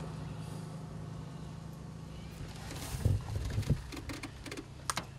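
Pickup truck engine running with a steady low hum, with a few knocks and clicks about three seconds in and one sharp click near the end.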